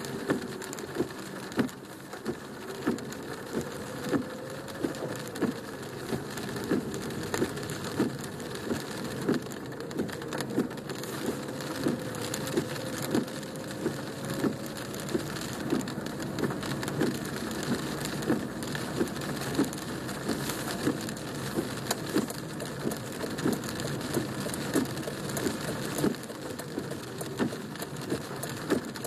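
Rain falling on a car, heard from inside the cabin: a steady hiss of water on the body and windshield, with heavy drops striking in sharp taps about once a second.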